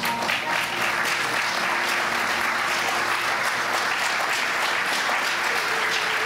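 Large audience applauding steadily, the clapping starting at once and holding an even level throughout.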